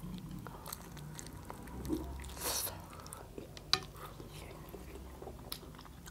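Close-up eating sounds of people chewing and biting bone-in chicken curry and dhido by hand, with small wet mouth clicks, a brief louder rush of noise about two and a half seconds in, and a sharp click a second later.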